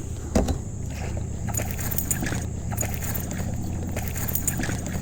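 Knocks and rattles of gear and hull in a fishing kayak while a hooked smallmouth bass is fought alongside, with a sharp knock about half a second in. Underneath runs a steady low rumble.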